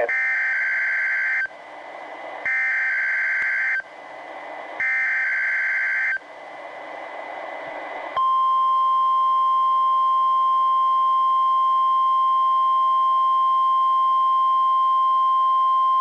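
NOAA Weather Radio Required Weekly Test on weather radio receivers: three short harsh bursts of SAME digital header data, about a second apart with radio hiss between them, then the steady 1050 Hz warning alarm tone starting about eight seconds in.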